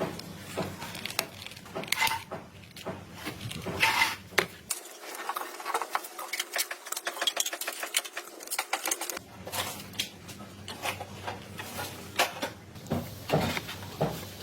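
Irregular small clicks, taps and light clattering, as of small hard parts and tools being handled, with a low steady hum that stops for a few seconds in the middle.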